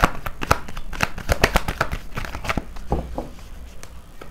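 Deck of tarot cards being shuffled by hand: a quick run of sharp card snaps and slaps that thins out to a few scattered ones after about two and a half seconds.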